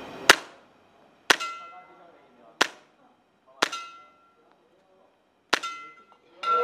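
KSC M9A1 gas blowback airsoft pistol firing five single shots about a second apart, each a sharp crack followed by a brief metallic ring. A louder, longer ringing sound begins right at the end.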